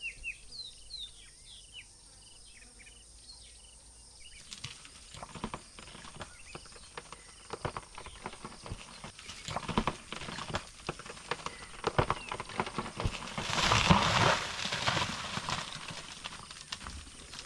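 Tree wood creaking and snapping under an African elephant bull's push, a run of sharp cracks from about four seconds in that builds to a loud crash of breaking wood and branches about fourteen seconds in as the tree goes down. Birds chirp at first, and insects buzz steadily throughout.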